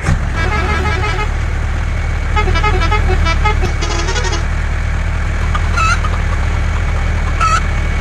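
Truck engine running steadily, with brief higher tones sounding over it now and then.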